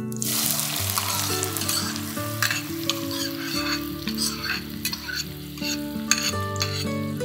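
Chopped onion dropped into hot oil and cumin seeds in an aluminium saucepan. It sets off a loud frying sizzle with scattered crackling pops that starts suddenly right at the beginning and keeps going. This is the tempering stage of a dal tadka, where the vegetables go in straight after the spices to cool the oil.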